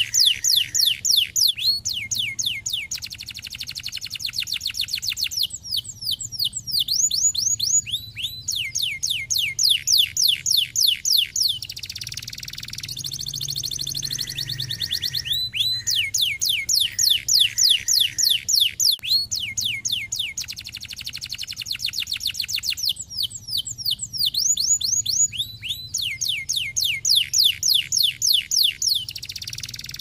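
Domestic canary singing a long song of trills. It repeats falling whistled notes, some phrases slow at a few notes a second and others fast rolls, switching phrase every few seconds.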